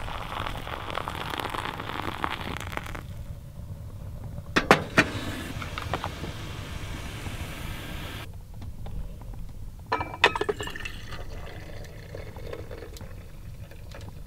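Hot water pouring from a kettle into a paper-filtered plastic coffee dripper for about three seconds, followed by sharp clinks as the kettle and the dripper are handled and set down, a couple about five seconds in and more about ten seconds in, when the dripper is set on a mug to drain.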